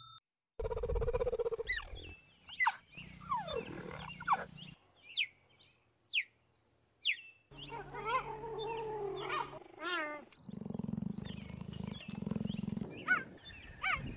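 Cheetah vocalisations in short spliced segments: high, bird-like chirps that fall sharply in pitch, wavering mid-pitched yelps, and a low, pulsing stretch near the end.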